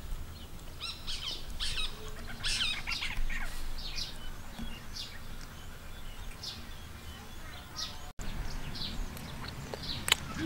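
Small birds chirping: many short, quick calls over a low, steady background rumble.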